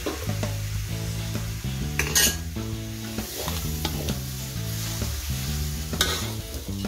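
Metal spatula stirring and scraping meat in curry paste and coconut milk around an aluminium wok, with a steady sizzle; two louder scrapes come about two and six seconds in. Low background music runs underneath.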